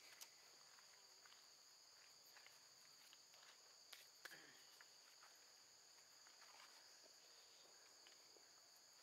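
Near silence except for a faint, steady, high-pitched insect drone, with a couple of faint clicks about four seconds in.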